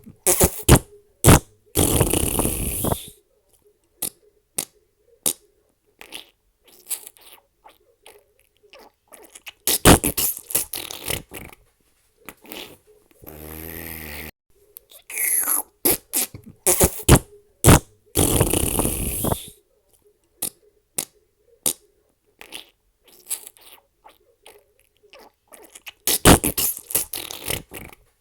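A string of fart sounds: short sharp pops and several longer sputtering farts lasting one to three seconds, with one lower, buzzier fart about halfway through.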